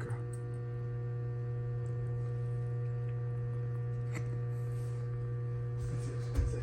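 A steady low electrical-sounding hum with a few fixed tones above it, broken by a few faint clicks and a sharper tap near the end.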